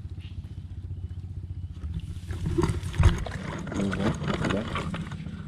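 A snakehead caught on a set line thrashing and splashing in the swamp water as it is hauled in, with a heavy thump about three seconds in. A steady low drone runs underneath.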